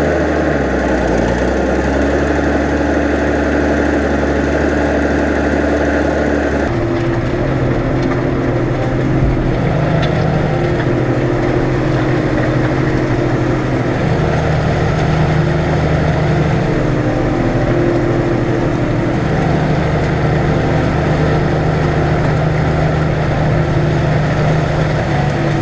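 New Holland 8160 tractor's diesel engine running steadily; its note shifts abruptly about seven seconds in.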